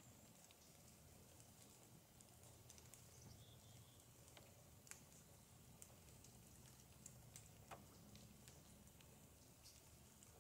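Near silence: faint outdoor room tone with a few faint, scattered clicks.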